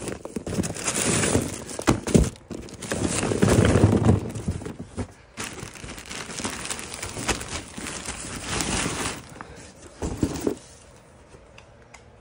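Plastic bags and packaging crinkling and rustling as hands rummage through a box of bagged items, in irregular bursts that die down near the end.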